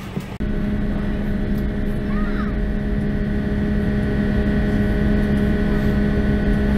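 Jet airliner cabin noise: a steady engine and ventilation hum with several steady tones over a low rumble, starting abruptly and growing slightly louder. A brief chirp about two seconds in.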